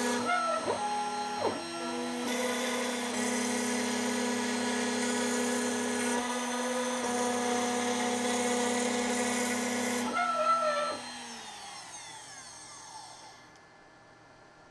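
CNC router spindle running steadily while a tapered ballnose bit carves wood. Gliding whines rise and fall around the start and again about ten seconds in as the machine moves. About eleven seconds in the spindle's steady tone stops and a falling whine follows as it spins down.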